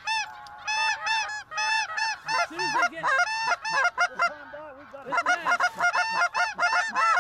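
Chorus of snow geese calling: many high, yelping calls overlapping densely, thinning briefly about two-thirds of the way through before thickening again, with a few lower-pitched calls mixed in.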